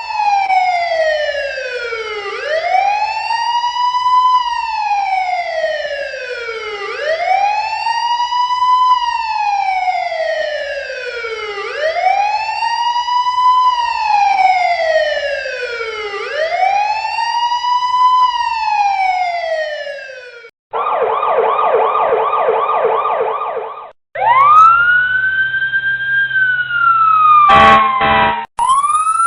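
Police car electronic sirens switching between tones. First a slow wail falls and rises again about every four and a half seconds for some twenty seconds. Then a fast warble runs for a few seconds, followed by another wail with a brief burst of rapid stutters, and a higher-pitched wail near the end.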